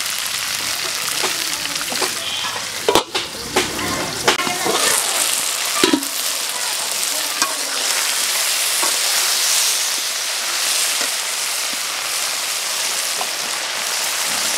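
Cut okra sizzling as it stir-fries in hot oil in a two-handled metal wok, with a metal spatula scraping and knocking against the pan, most often between about three and six seconds in.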